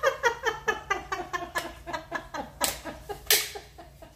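A person laughing in a quick run of short 'ha' pulses, about four a second, sinking in pitch and trailing off, then two short noisy gasps.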